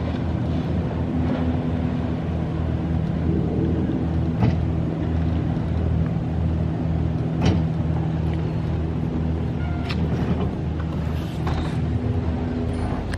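Wake surf boat's inboard engine running steadily with a low hum as it passes on the river, with a few sharp knocks; the engine sound drops away near the end.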